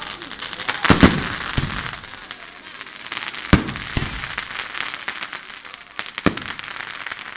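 Fireworks going off: a dense crackle of many small pops, with three loud bangs standing out, about a second in, midway, and near the end.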